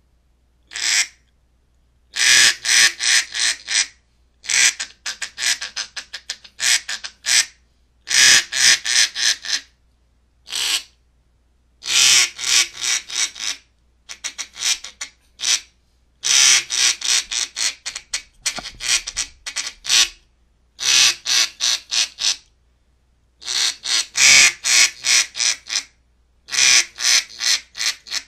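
Duck call blown by a person, giving strings of loud, sharp quacks separated by short pauses, with some quicker runs of short notes in between.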